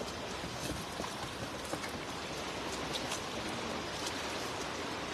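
Shallow stream running steadily over rocks, with a few faint light splashes from wading in the water.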